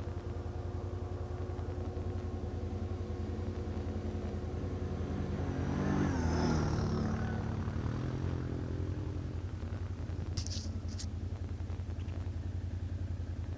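ATV engine idling steadily, while a second engine swells and fades as it passes about halfway through. Two short clicks come near the end.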